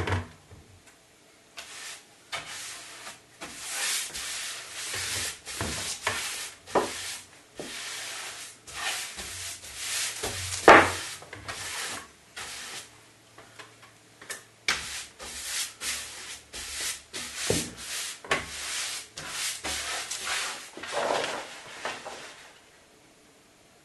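Wide paste brush spreading wallpaper paste over a chipboard panel in repeated scrubbing strokes, with one sharp knock about eleven seconds in. The brushing stops near the end.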